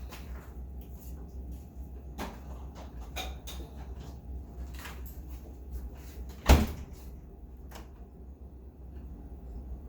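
Kitchen handling sounds: scattered light knocks and clicks over a steady low hum, with one sharp, loud knock about six and a half seconds in.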